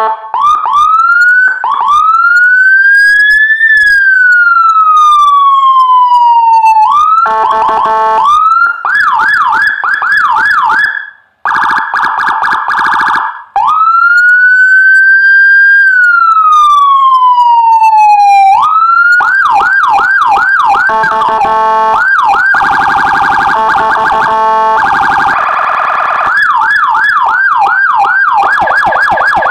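Electronic police siren sounding through a TOA CJB-150E siren horn speaker, cycling Whelen HHS 3200-style tones. It plays a slow wail that rises and falls, twice, alternating with fast warbling yelp sections and steady blaring horn tones.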